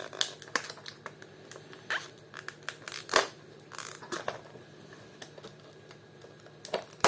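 Small plastic clicks and scrapes of a pedometer's stiff battery case being worked at by hand, irregular, with a few sharper snaps.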